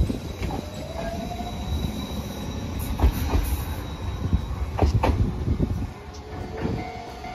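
Hiroden tram rolling by on the rails: a steady low rumble broken by several sharp wheel knocks over rail joints, loudest about three and five seconds in, with a faint squeal from the wheels.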